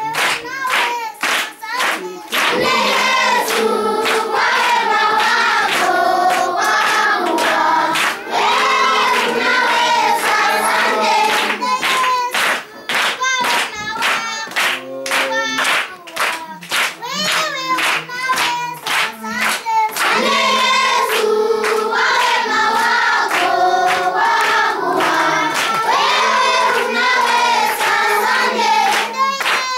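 A group of schoolchildren singing a greeting song together while clapping their hands in rhythm. In the middle the singing thins out and the clapping carries on, then the full song comes back.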